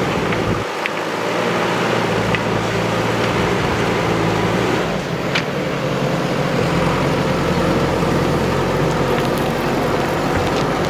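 Heavy diesel engine of earthmoving machinery running steadily, with a few light clicks; the engine note changes about five seconds in.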